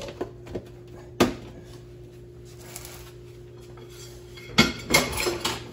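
Dishes and cutlery clattering: a few light clinks, a sharp knock about a second in, then a quick run of clattering near the end, over a faint steady hum.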